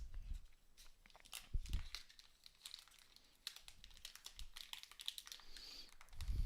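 Faint typing on a computer keyboard: a run of light key clicks, sparse at first and coming thick and fast in the second half.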